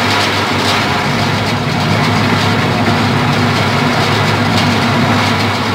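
Belt-driven sugarcane crusher running steadily, its rollers pressing cane stalks for juice. The sound is a loud, even machine noise over a low hum.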